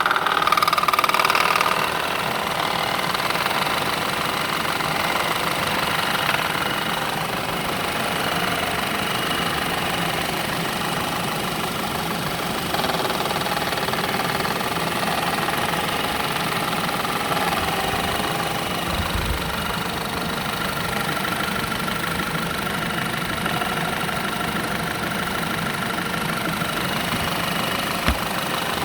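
A 2.0 TFSI turbocharged four-cylinder petrol engine running steadily with a fast, even knock through its sound. The knock is one the owner cannot identify.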